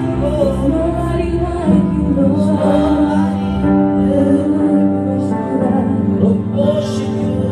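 Live gospel worship music: a woman lead singer and backing vocalists sing over long held keyboard chords.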